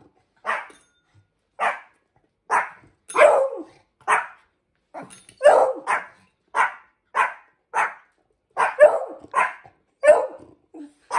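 A dog barking over and over: more than a dozen short barks, roughly one or two a second, with brief gaps between them.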